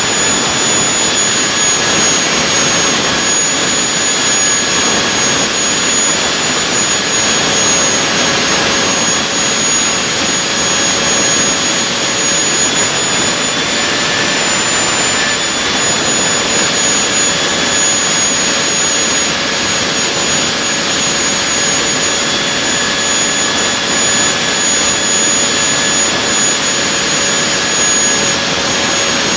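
Handmade model turbojet engine running steadily at a constant speed: a loud jet rush with a steady high-pitched whine on top.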